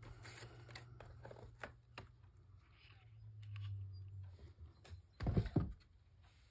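Small paper pieces handled with light rustles and clicks, and a hand-held hole-punch pliers worked on a paper label, with one loud dull thump a little after five seconds in.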